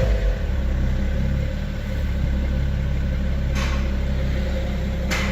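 BMW E60/E61 diesel engine idling steadily, running on a cloned replacement Bosch EDC16C35 ECU after a no-start fault. Two short hisses sound, about three and a half seconds in and near the end.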